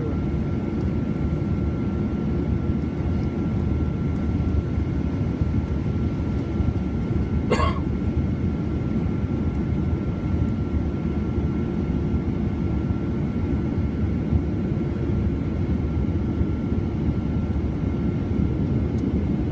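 Boeing 737-800's CFM56 jet engines running steadily, heard inside the cabin as an even low rumble with a thin, steady high whine. A single sharp click a little past halfway.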